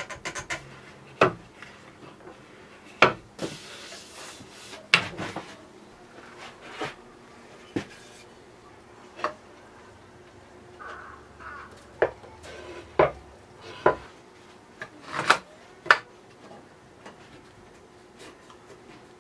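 Hardwood table legs and clamps being handled on a workbench: a string of sharp, separate knocks and clacks of wood and clamp parts, with a scraping sound lasting about a second near the four-second mark.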